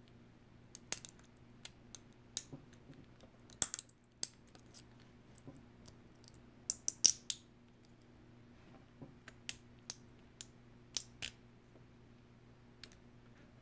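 Small slotted screwdriver prying and picking support material out of a 3D-printed plastic part: irregular sharp clicks and snaps as bits of plastic break away, loudest about three and a half and seven seconds in.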